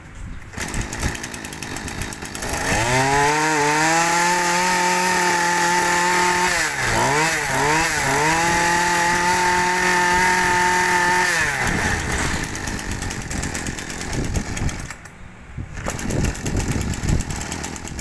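Makita 26cc two-stroke brush cutter engine started and run: it catches, revs up to a steady high speed, is blipped up and down a few times at the throttle in the middle, then drops back to idle about twelve seconds in. It has a muffled-type exhaust that damps its noise.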